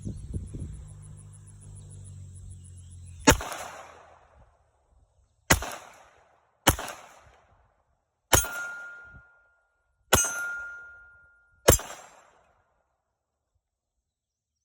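Six shots from a Glock 42 .380 ACP pistol, fired singly at an uneven pace one to two seconds apart, each with a short echoing tail. A ringing tone hangs on for about a second and a half after the fourth and fifth shots.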